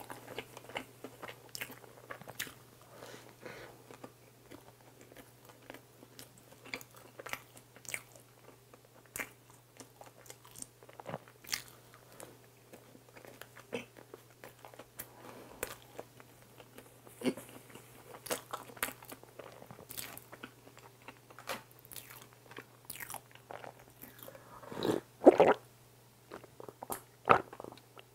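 Close-miked chewing of soft, cakey cream bread, with wet mouth clicks and smacks and a light gritty crunch from sugar in the strawberry cream filling. Near the end come a few louder gulps as milk is drunk.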